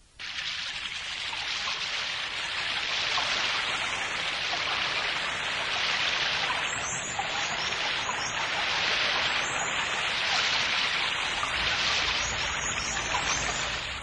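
A steady, high-pitched rushing hiss that starts abruptly and gently swells and eases every second or two, an ambient noise bed without any voice or music.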